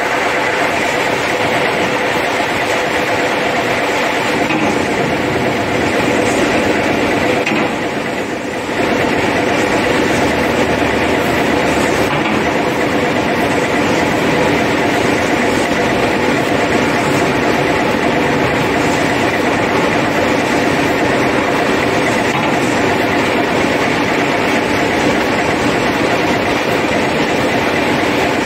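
Ultra-high-pressure hull-washing rig running steadily: an engine-driven drone under the hiss of the water jet on the steel hull. It dips briefly about eight seconds in.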